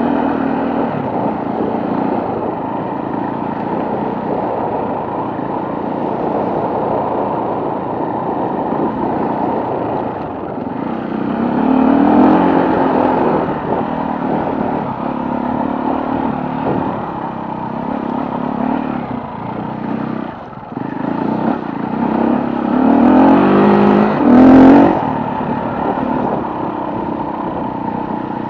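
Off-road motorcycle engine running under load on a rough trail. The throttle opens and the pitch rises about twelve seconds in. It rises again, loudest, with a sharp rev near the end, after a brief dip just before.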